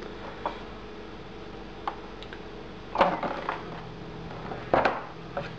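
Handling noise from a BAHCO wrecking knife: a few light clicks, then two louder knocking scrapes about three and five seconds in.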